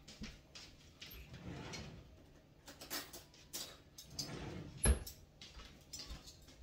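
Spoon and fork clinking and scraping against dishes: a scatter of light clicks with one sharper knock about five seconds in.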